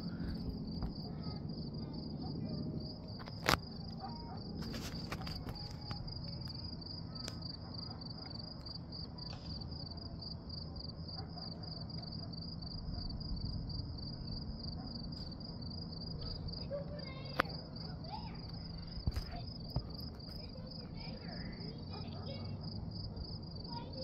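Crickets chirping steadily in an even, rapid high-pitched pulse, about four chirps a second, over a low background rumble, with a few sharp clicks.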